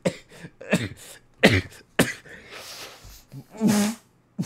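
A man's short wordless vocal outbursts, about seven in a row: cries that fall in pitch, mixed with harsh bursts of breath like coughs.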